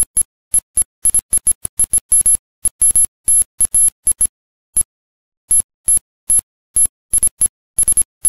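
Short, irregular bursts of a high electronic ringing tone, each cut off sharply to dead silence, several a second with a few longer gaps.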